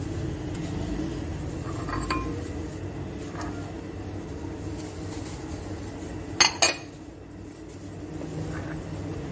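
Small bowls knocking against a steel pan as chopped herbs and onion are tipped in: a light clink about two seconds in, then two sharp clinks in quick succession about six and a half seconds in, over a steady low hum.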